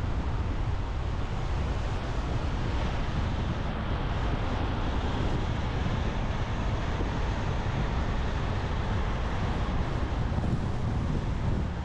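Steady rumble and wind noise of a truck driving, with no distinct events.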